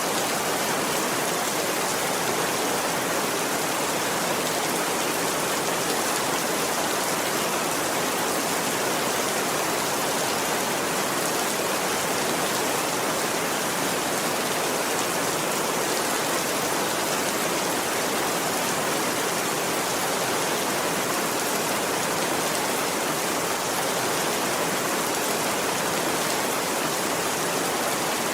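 Steady rain falling: a dense, even hiss with no thunder and no single drops standing out.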